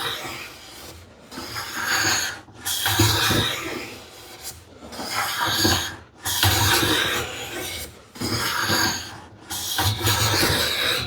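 Hand plane taking shavings along the edge of an ash board: about six long strokes, each lasting a second or two with short pauses between. The plane is edge-jointing the board, taking full-length shavings until the hollow in the middle is gone.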